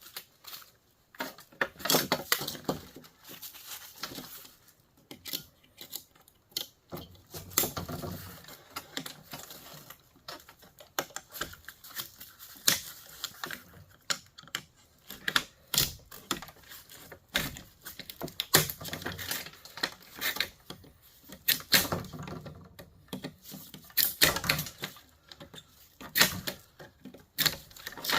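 Irregular clicks, clinks and knocks of hand tools on metal parts and wiring while a line conditioner is being taken apart for scrap.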